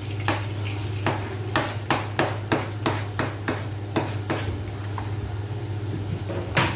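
A knife tapping and scraping on a plastic chopping board about three times a second as diced garlic is knocked off into a wok. Near the end a metal spatula clanks once against the wok.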